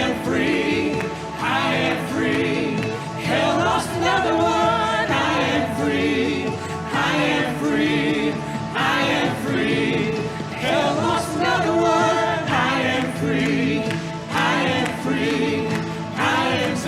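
Live gospel worship music: several voices singing together like a choir, over instrumental backing.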